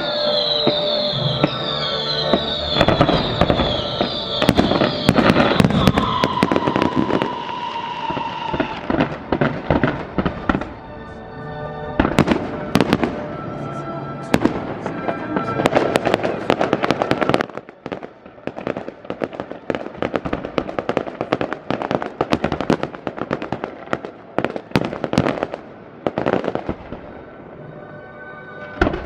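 Fireworks display going off: a dense run of bangs and crackles, with falling whistles from rockets in the first several seconds. The barrage thins a little after about two-thirds of the way through.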